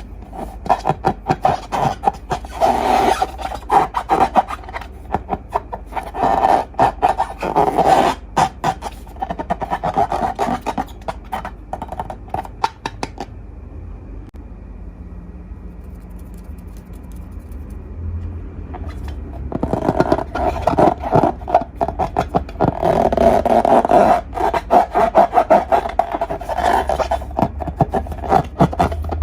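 Slime being mixed and squished by hand, a dense run of sticky crackles and wet pops, stopping for several seconds near the middle and then starting again.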